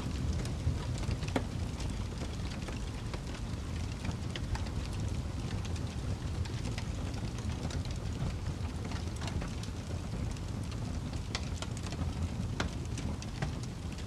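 Log fire burning: a steady low rumble of flames with frequent, irregular sharp crackles and pops from the burning wood.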